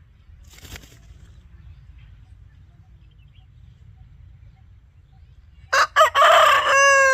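An Aseel rooster crows once near the end: a couple of short opening notes, then a long held note that drops in pitch as it ends.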